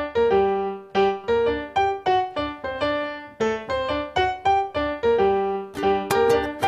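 Live piano accompaniment to a silent film: a steady run of short notes, several a second, each dying away quickly. About six seconds in the sound grows brighter and denser as further playing joins.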